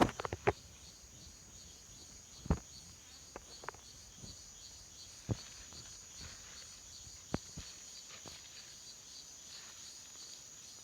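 Insects chirping steadily in a high, evenly pulsing rhythm, with a few scattered sharp knocks or clicks, the loudest about two and a half seconds in.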